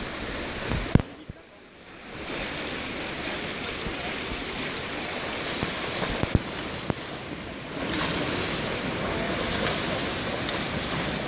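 Swimmers splashing through the water of an indoor pool, a steady wash of water noise. A sharp knock about a second in, and the sound drops away for about a second before the splashing returns, a little louder from about eight seconds in.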